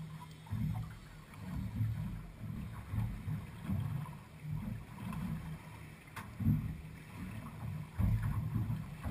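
Small boat rocking in choppy water, with waves slapping the hull in irregular low thuds and a faint low hum, and one sharp click about six seconds in.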